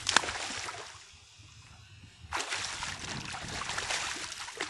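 A hooked largemouth bass thrashing and splashing at the surface beside the boat, in two bursts: a short one at the start with a sharp knock, and a longer one from about halfway in.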